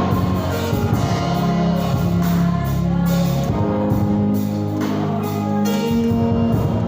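Gospel music played and sung at a church service: voices singing over instruments with a strong bass line and a steady beat.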